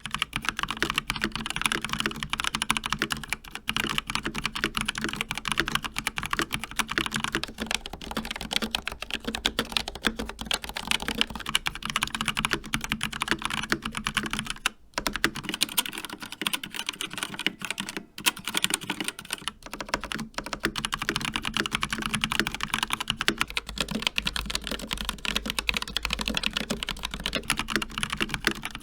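Rapid typing on a run of mechanical keyboards with linear red switches, a different board about every eight seconds: the Asus ROG Flare II Animate (ROG NX Red), the Asus ROG Claymore II (ROG RX Red optical), the Rapture Delta (Kailh Red) and the Asus ROG Strix Scope RX (ROG RX Red). Key presses clatter in a dense, continuous stream.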